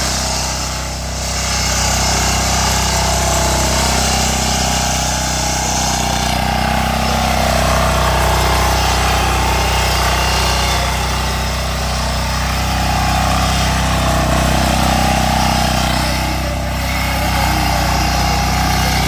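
Micojet diesel power tiller engine running steadily under load as its rotary tines churn wet soil, with a brief dip about a second in and again near the end.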